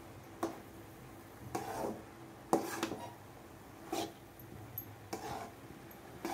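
A spatula scraping through chopped snake gourd and grated coconut in a pan while stirring: six short scrapes about a second apart, over a faint steady hum.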